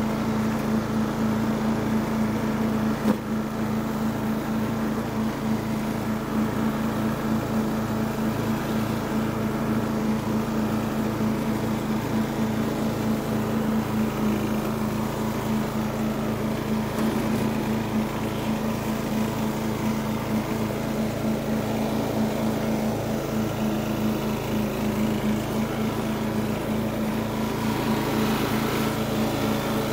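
Riding lawn mower engine running steadily at a constant speed as the mower drives across the lawn, with one brief knock about three seconds in.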